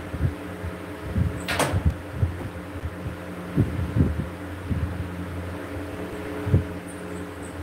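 Ceiling fan running with a steady electric hum, under irregular low thumps. A single sharp knock comes about one and a half seconds in.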